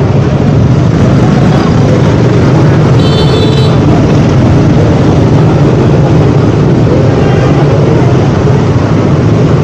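KTM Duke 200's single-cylinder engine running steadily while riding, with a short high-pitched beep about three seconds in.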